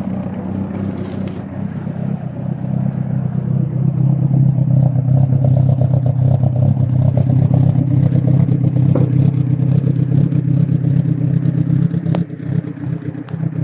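Nissan 240SX car engine idling steadily just after being started with a push-button start.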